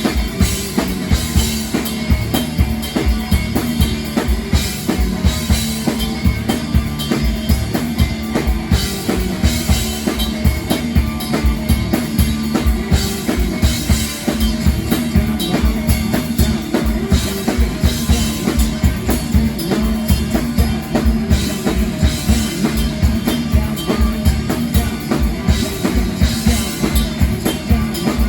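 Live band music driven by a drum kit playing a fast, steady beat with a prominent bass drum, over a held low note.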